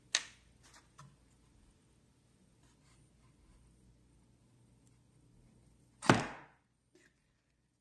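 Light clicks and taps of small metal lighter parts being handled during reassembly, with one louder, sharper clack about six seconds in that trails off briefly.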